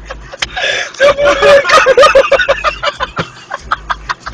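A voice making short, repeated pitched sounds, loudest from about one to two and a half seconds in, over a run of sharp clicks.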